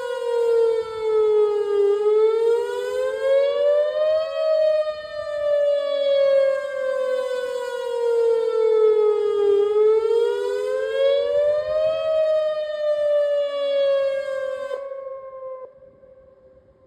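Outdoor emergency warning siren sounding a slow wail during a test of the warning system: one loud tone with several overtones sliding slowly down, up, down, up and down again. It fades out near the end.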